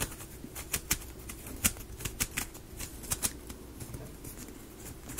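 Light, irregular clicks and taps of laser-cut plywood UGEARS model pieces being handled and fitted together, a few stronger knocks among many faint ones.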